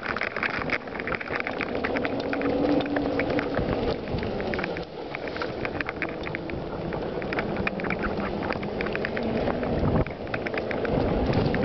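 Mountain bike rolling over a stony dirt single track: tyres crunching on gravel and the bike rattling with a constant patter of small clicks and knocks.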